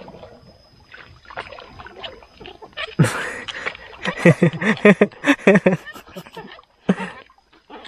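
A man laughing: a run of short, evenly repeated voiced bursts from about four to six seconds in, after a brief noisy burst about three seconds in.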